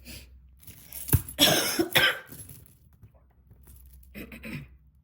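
A person coughing: a loud, sudden cough about a second in, then a fainter burst near the end.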